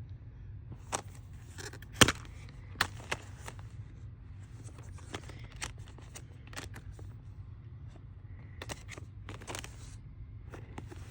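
Plastic Blu-ray cases being handled: a series of irregular clicks and taps, the loudest about two seconds in, with short bouts of rustling and scraping between them.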